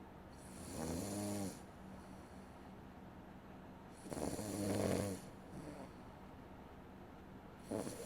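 A sleeping person snoring into a streaming microphone: two pitched snores about a second long, some three and a half seconds apart, with a third beginning near the end.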